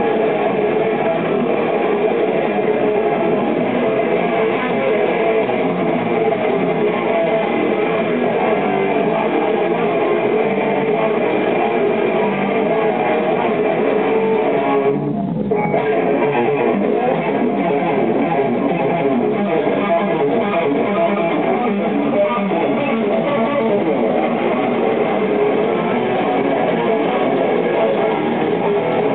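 Live band music led by strummed electric guitar, with bass guitar underneath.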